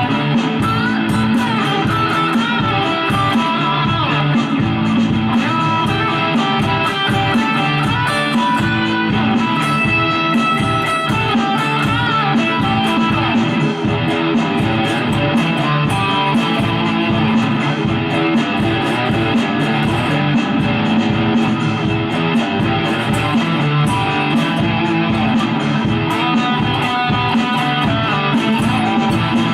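Telecaster electric guitar with active humbuckers, played with distortion through a Mooer GE200 amp modeller, noodling lead lines over a looped backing track with a steady drum beat.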